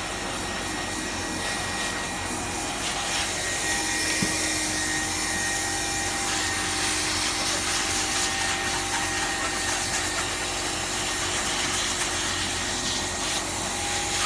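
Steady machine hiss, like a blower running, with rubbing and scraping as a 30 mil repair patch is worked down onto the liner.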